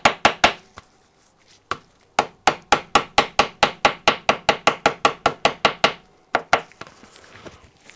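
Small hammer rapidly tapping steam jointing paper against the edge of a Stuart P10 cylinder block, cutting out a cylinder gasket. Light, even taps about five a second, in two runs with a pause of over a second between them, then a single tap and faint rustling of the paper near the end.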